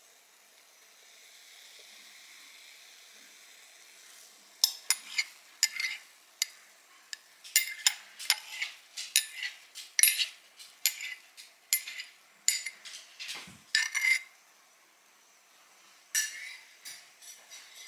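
Frothed milk pouring softly into a mug of tea. Then a spoon taps and scrapes against crockery, about twice a second for some ten seconds, stops briefly, and taps a few more times near the end.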